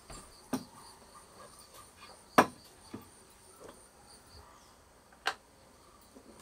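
A few sharp knocks and clinks of clay pots being handled and set down on a table, the loudest about two and a half seconds in. A faint steady chirring of insects runs underneath.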